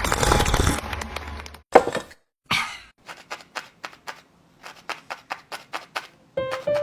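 Cartoon sound effects: background music drops out, then comes one sharp hit, a short rising whoosh, and a run of light quick taps, about three or four a second. Music starts again near the end.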